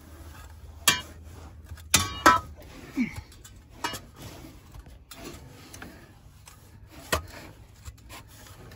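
A shovel digging sand out from under a truck's rear axle: scraping through the sand, with about half a dozen short sharp knocks and scrapes spread through it, the strongest around two seconds in.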